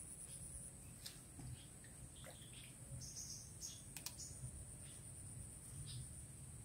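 Faint outdoor ambience: a steady high-pitched insect drone with a few short bird chirps and scattered small clicks.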